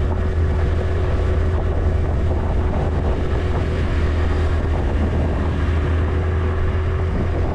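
RKS Newlight 125 Pro scooter's single-cylinder engine running steadily while riding two-up up a steep road, a constant tone over a heavy wind rumble on the helmet microphone.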